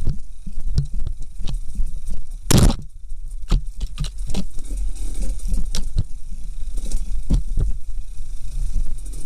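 Dirt bike engine running at low revs on a slow descent over rocky ground, with frequent knocks and rattles as the bike rides over stones. A brief, loud scrape about two and a half seconds in.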